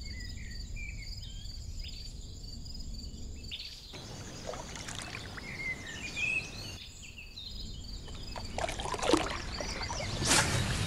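Songbirds chirping and singing over a low rumble, with a steady high insect drone in the first few seconds. The ambience changes abruptly twice, and a hiss grows louder near the end.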